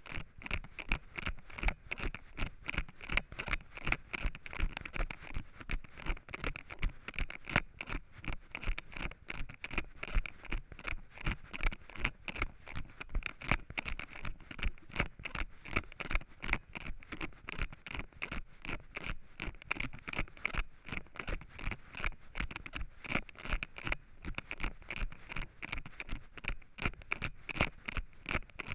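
Running footsteps on dry fallen leaves and earth: a quick, even rhythm of footfalls, each with a crunch and scrape of leaf litter.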